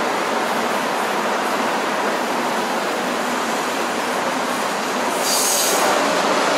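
Subway train running on its rails with a steady rumble and rush. About five seconds in, its steel wheels give a brief high-pitched squeal.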